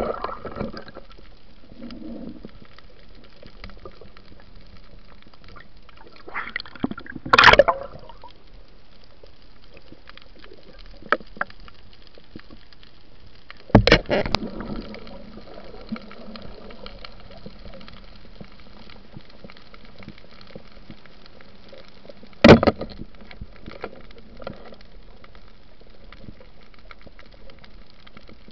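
Underwater sound: a steady hiss with water gurgling, broken by three loud sudden knocks about a quarter of the way in, halfway, and about four-fifths of the way through, plus a few lighter clicks.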